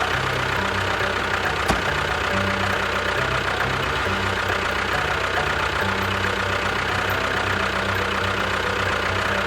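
A small engine running steadily, with a low bass line of background music under it.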